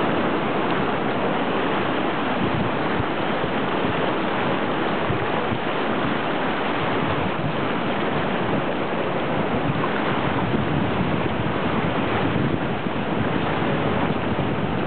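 The Ebro in flood: fast, muddy river water rushing past the embankment as a steady, even rushing noise.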